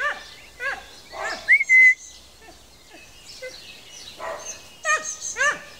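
Dog yelping in short, high calls that fall in pitch, several near the start and another run near the end. A brief high whistle rises and then holds about a second and a half in.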